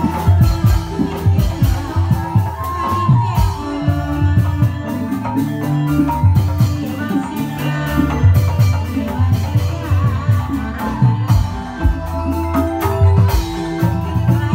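Live reog troupe music: drums and pitched metal percussion playing a steady rhythmic tune.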